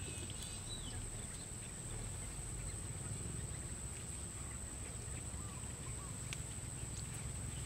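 Outdoor pond-side ambience: a continuous high-pitched insect drone over a low rumble, with a few faint bird chirps and a couple of light clicks.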